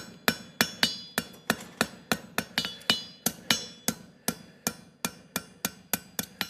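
Farrier's hammer striking a hot steel horseshoe on the anvil in a steady rhythm, about three to four blows a second, with a ringing tone on many blows, as the heel is forged into a jar calk.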